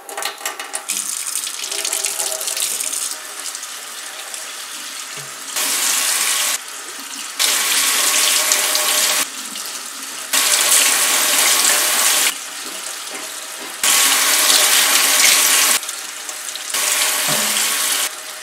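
Kitchen faucet running a stream of water over a CPU tower cooler's heatsink fins into a stainless steel sink. The hiss is steady, with louder stretches of a second or two that start and stop sharply, about five times.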